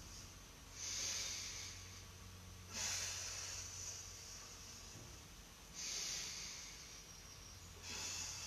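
A person breathing hard in and out through the mouth or nose: four short, hissy breaths about every two to three seconds. It is the paced breathing of the Pilates hundreds, held while the arms pump.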